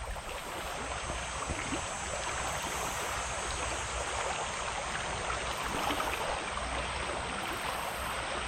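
Creek water flowing steadily over rocks.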